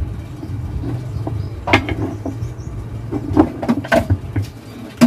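A few sharp metal clicks and knocks of hand tools and loose parts on a small gasoline engine being taken apart, over a steady low hum.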